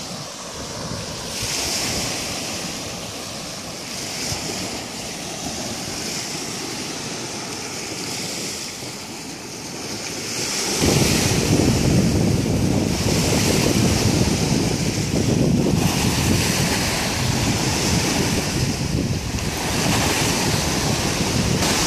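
Small waves washing onto a sandy lake shore, each swell a brief hiss every couple of seconds. About halfway through, heavy wind starts buffeting the microphone, a loud low rumble over the surf as the water turns choppy.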